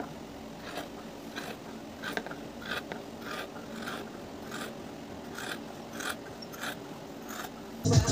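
Quiet, repeated short rasping strokes during hand upholstery work on a car seat, about one and a half strokes a second, in a small room. The music returns near the end.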